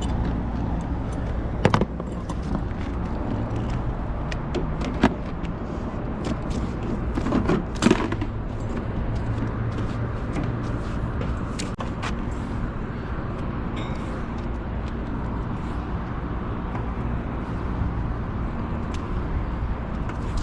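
Steady low machine hum with a few sharp clicks and knocks, the loudest about 2, 5 and 8 seconds in.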